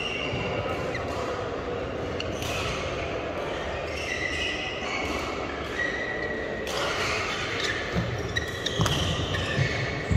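Badminton rally in a large echoing hall: sharp racket strikes on the shuttlecock every second or two, with shoes squeaking on the court mat and thuds of footwork, the thuds heaviest near the end.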